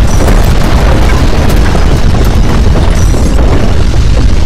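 Violent earthquake shaking: a loud, continuous deep rumble with rattling and clattering throughout.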